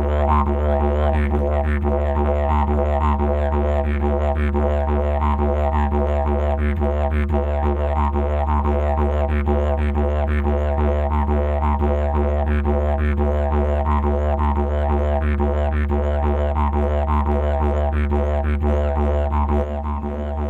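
Background music of a didgeridoo: a steady low drone with rhythmic pulsing overtones, dropping a little in level near the end.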